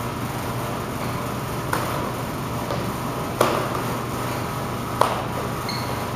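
Three short, sharp impacts from a martial artist's body strikes during a kung fu drill, about a second and a half apart, over a steady low hum of room noise.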